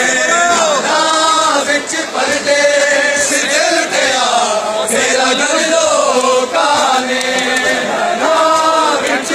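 Male voices chanting a noha, a Shia mourning lament, led by a singer on a microphone.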